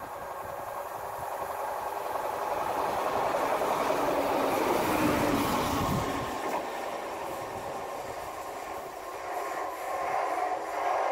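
A Class 170 Turbostar diesel multiple unit passing through at speed, its engine and wheel noise building to a peak about five seconds in and then easing off. Near the end the train noise rises again briefly.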